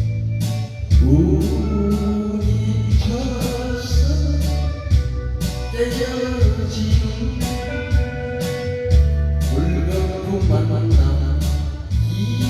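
Korean trot song: a singer's melody over a band with guitar and a steady, beating bass line, the melody coming in about a second in.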